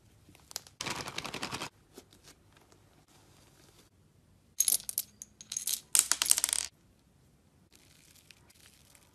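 Hard candy-coated chocolates and candy discs clattering and clinking in a metal spoon, in two loud bursts of rattling about halfway through. Earlier there is a short burst of dense crackling as thick slime is stretched, and near the end faint soft crackles as slime is squeezed.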